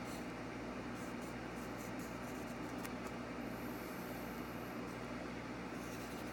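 Graphite pencil scratching on paper in short strokes, faint over a steady background hiss.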